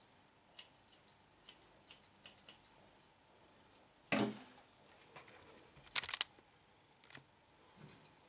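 Grooming scissors snipping a poodle's hair in a quick run of short, crisp cuts, about three to four a second. Two louder, sharper clacks follow, near four and six seconds in.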